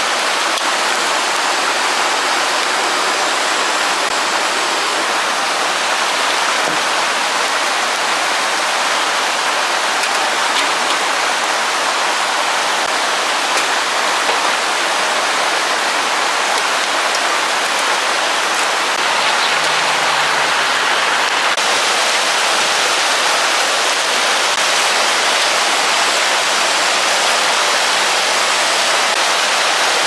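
Rain falling steadily, an even rushing hiss with no break.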